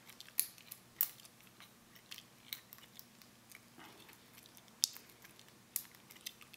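Lock pick and tension wrench working the pins of a small Fraim pin-tumbler padlock: irregular sharp clicks and ticks, a few louder ones scattered through.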